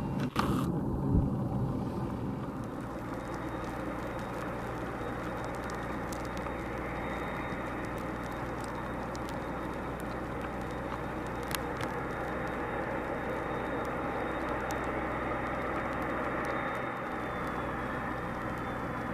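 Boeing 767-200F's jet engines running, a steady rumble with a thin high whine that dips in pitch near the end.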